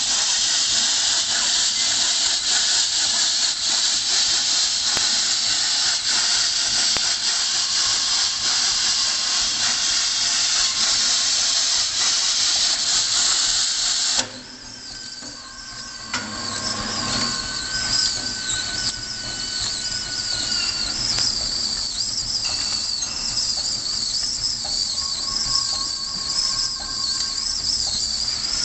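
H1000L vertical orbital coil wrapping machine running, its ring winding paper tape around a coil. A loud steady hiss fills the first half; after a sudden drop about halfway, it gives way to a wavering high whine with fainter steady tones over a lower running noise.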